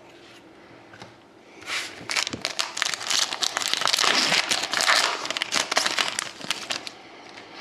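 Plastic wrapper of a hockey card pack crinkling as it is handled and opened, a dense crackle that starts about a second and a half in and dies away near the end.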